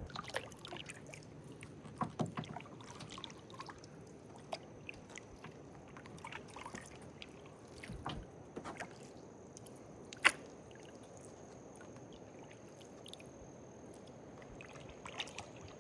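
Kayak paddle strokes in still swamp water: soft dipping, sloshing and dripping with scattered small clicks, and one sharp knock about ten seconds in.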